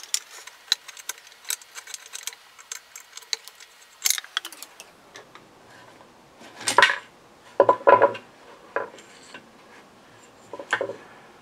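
Screwdriver taking two small screws out of a tape transport's metal chassis: a run of small metal clicks and scrapes, then a few louder clinks and knocks about seven to eight seconds in as the circuit board is swung open on its hinge.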